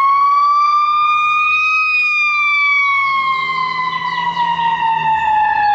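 Ambulance siren on the wail setting: one slow sweep that rises for about two seconds and then falls steadily for the rest.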